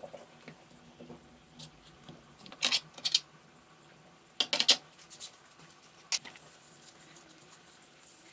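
Short scratchy brushing and scraping strokes in a few brief clusters, as a brush works chemical paint stripper over an aluminium fork leg and the lifting spray paint.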